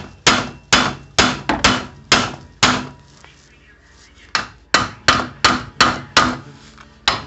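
Hammer blows on a seized strut bolt, about two to three strikes a second, with a pause of over a second midway before the hammering resumes.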